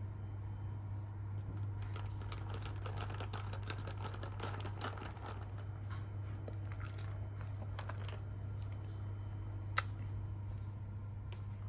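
Typing on a computer keyboard: a quick run of light key clicks for several seconds, then one sharper click, over a steady low hum.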